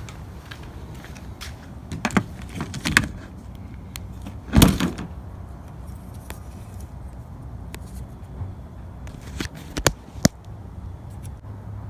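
Car windshield wiper blade and arm being handled: scattered sharp clicks and knocks, the loudest about four and a half seconds in and two more near the end.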